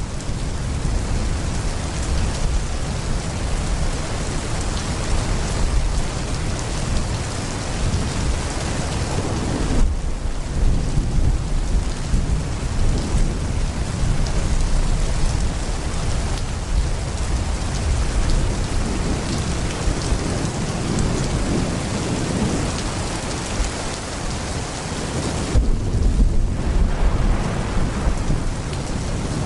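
Heavy rain pouring steadily, with deep thunder rumbling underneath throughout; a stronger low thunder roll stands out a few seconds before the end.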